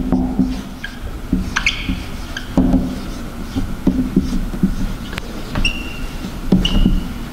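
Dry-erase marker writing on a whiteboard: a run of scratchy strokes, with short high squeaks about two seconds in and again near the end.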